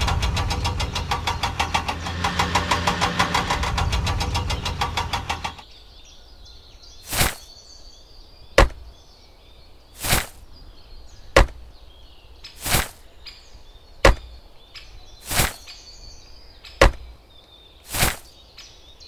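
An engine running with a rapid, even pulsing beat that cuts off suddenly about five and a half seconds in, followed by a sharp click or knock about every second and a half, nine in all.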